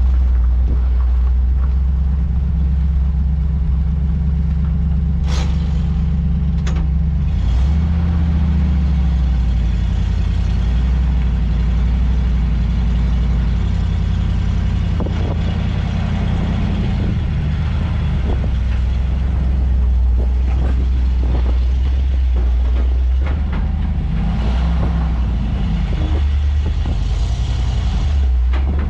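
Engine of a loaded grain truck running as it is driven: a heavy, steady low drone that shifts in pitch a few times. Brief hissing sounds come around six to eight seconds in.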